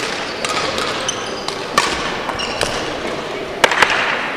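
Badminton play in an echoing sports hall: sharp racket strikes on the shuttlecock, the loudest about two seconds in and near the end, with brief shoe squeaks on the court floor.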